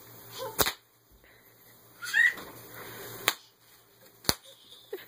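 Bubble wrap popping under a toddler's bare feet as she steps and bounces on it: three sharp, separate pops spread out over several seconds.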